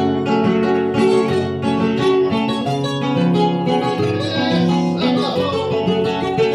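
Acoustic guitar playing the instrumental introduction to an Argentine folk song, plucked and strummed chords with sustained bass notes, amplified through a live sound system.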